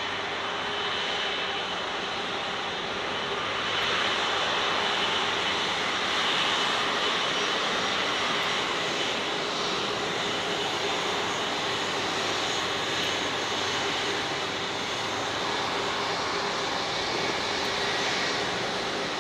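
Jet airliner engines running, a steady rush with a high whine, growing a little louder about four seconds in.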